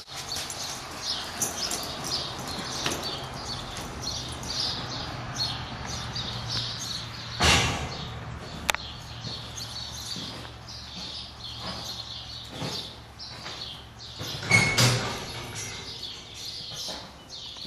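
Small birds chirping over and over in short high calls, over a steady low hum. Two brief, louder rushing noises break in, about seven and a half and fifteen seconds in.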